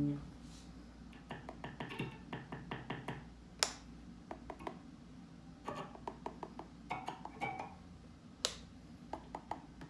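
Small irregular clicks and taps from an electric guitar's controls being handled, with two sharper clicks about a third of the way in and near the end, over a steady low amplifier hum.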